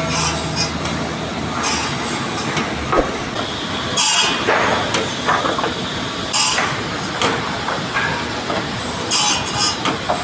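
Table circular saw cutting rubberwood boards into short pieces over steady sawmill machine noise, with a sharp burst of cutting noise every two to three seconds.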